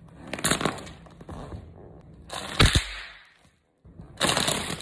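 A sneaker stomps on a small wrapped packet on a wooden floor: a sharp bang with a low thud about two and a half seconds in, among a few shorter scuffing noises.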